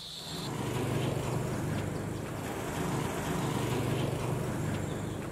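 A passenger jeepney's engine running as the vehicle approaches along the road, a steady low hum that comes in about half a second in.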